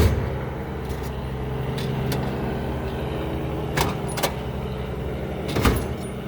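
Metal clicks and clanks from tools being handled in a steel tool cart, several separate knocks, with the sharpest at the start and near the end, over a steady low machine hum.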